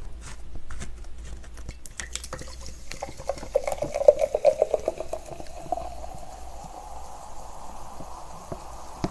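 Coca-Cola poured from a plastic bottle into a glass mason jar: fine fizzy crackling at first, then from about three seconds in a glugging fill whose pitch rises as the jar fills, settling into a steady fizz of carbonation near the end.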